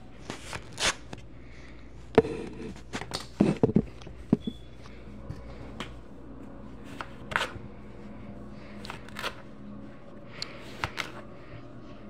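Kinetic sand being cut with a plastic cutting tool and pressed and broken apart by hand on a countertop: scattered short scrapes and soft taps at an irregular pace, thickest and loudest about two to four seconds in.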